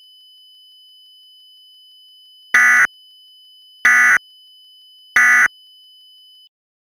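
Emergency Alert System end-of-message data bursts: three short, harsh digital screeches, each about a third of a second long and just over a second apart. They play over a faint steady high tone that cuts off near the end.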